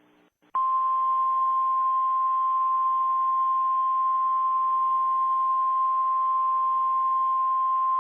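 Emergency Alert System attention tone: a single steady, unbroken beep at one pitch, starting about half a second in and held through to the end, over a faint radio-style hiss. It is the warning tone that comes between the alert's data bursts and the spoken message.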